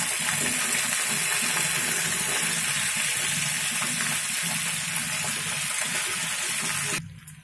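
Freshly added brinjal (eggplant) pieces, still wet from soaking in salted water, sizzling steadily in a pan of hot oil with tempering spices. The sizzle drops away abruptly near the end.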